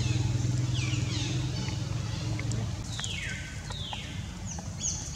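A motor vehicle's engine running steadily, fading out about halfway through. Over it come high calls that fall in pitch, about a second in and again about three seconds in, with a few short high notes near the end.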